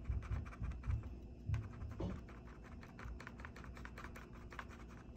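Plastic water bottle crackling and clicking as it is held and pressed with a paintbrush: many small irregular ticks, several a second, with a few soft low thumps in the first two seconds.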